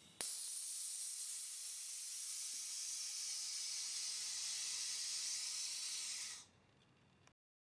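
Steady high hiss of compressed air on an air-brake test rig as the brake chamber is applied and released with the hand valve. It cuts off suddenly about six seconds in.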